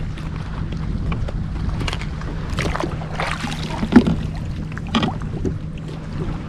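Wind buffeting the microphone and water against a fishing kayak, with a few sharp knocks on the kayak and a brief swishing sound in the middle.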